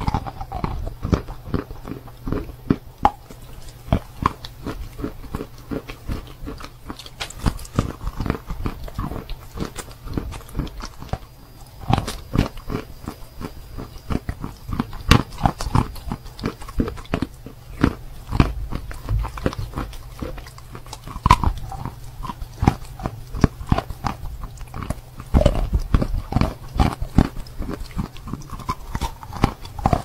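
Close-miked biting and chewing of soaked natural chalk (sawn Belgorod chalk). The chalk makes dense, irregular crunching clicks, several a second.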